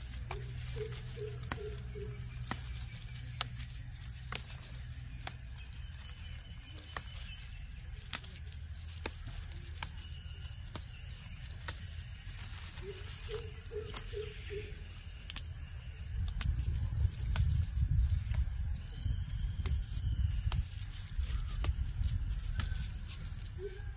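Insects buzzing steadily in a farm field, with a bird calling a short run of four or five low notes three times, about ten seconds apart. Light snaps of leaves being picked by hand, and wind rumbling on the microphone through the second half.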